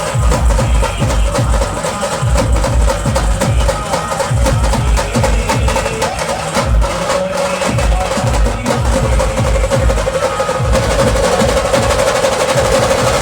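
Procession band playing a song: fast, heavy drumming under a held melody line. The drums drop out about eleven seconds in, leaving the melody.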